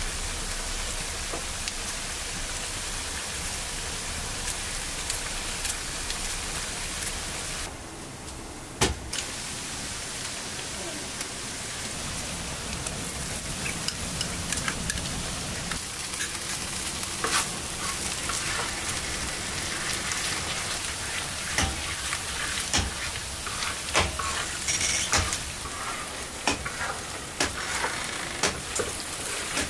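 Onions and potato strips sizzling steadily as they fry in oil in a wide pan. From about halfway on, a utensil knocks and scrapes against the pan many times while tomato paste is stirred in.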